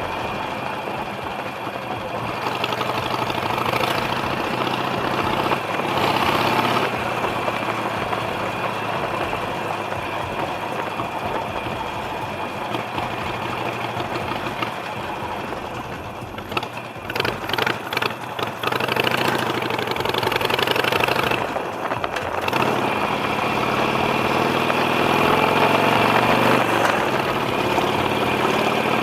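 Motorcycle engines starting and idling. Near the end one engine's pitch rises as it is revved or pulls away.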